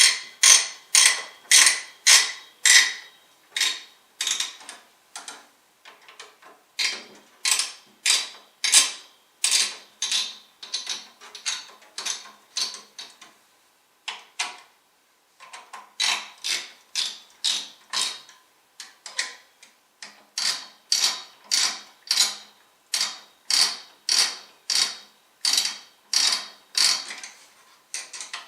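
Repeated sharp mechanical clicks, about two or three a second, with a short pause about halfway through: a screwdriver working the CPU cooler's mounting screws loose.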